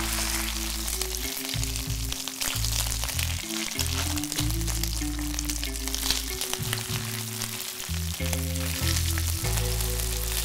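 Spaghetti frying in oil and tomato puree in a wide seasoned pan: a steady sizzle with fine crackles as the pasta sticks and crisps on the bottom while it is turned with tongs and a wooden spatula. Background music with a stepping bass line plays under it.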